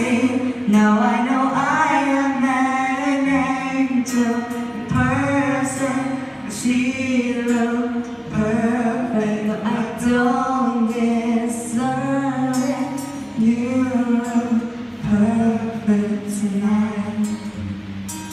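Slow ballad sung live by male and female voices over acoustic guitar, amplified through microphones and PA speakers.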